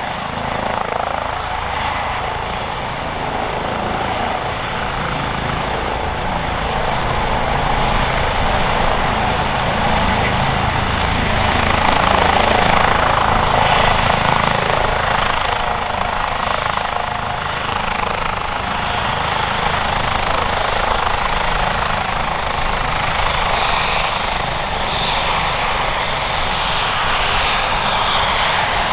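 Airbus H135 P3 helicopter with twin Pratt & Whitney PW206B3 turboshaft engines, hovering low and setting down on its pad, then running on the ground with rotors turning: a steady, loud rotor and turbine sound.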